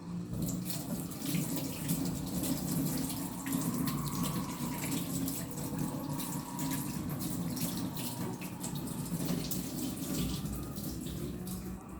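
Dolce Gusto Genius Plus capsule coffee machine brewing: a steady pump hum with liquid running and spurting into a cup, easing off near the end.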